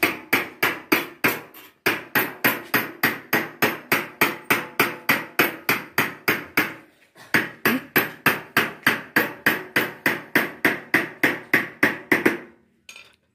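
Small hammer striking along the edge of a stainless steel dome panel over a steel bar: steady rapid blows about four a second, each with a metallic ring. The blows pause briefly twice and stop near the end.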